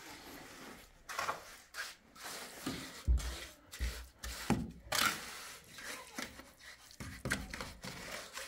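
Wet cement mortar being scraped and smoothed with a trowel on a window sill: irregular scrapes, with two dull low thumps about three and four seconds in.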